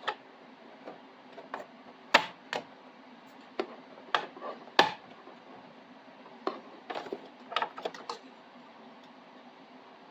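Scattered light clicks and taps of small hard parts and a screwdriver being handled while assembling a 3D printer, about a dozen over the first eight seconds, stopping near the end.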